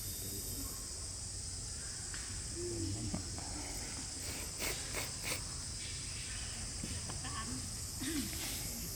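Steady high insect drone, with a few faint short calls and a cluster of clicks about halfway through.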